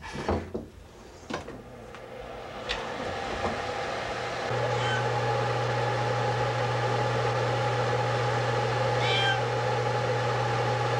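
A steady low hum with a hiss, building over the first few seconds and stepping up in level about four and a half seconds in, with a cat giving two short high mews, about five and nine seconds in.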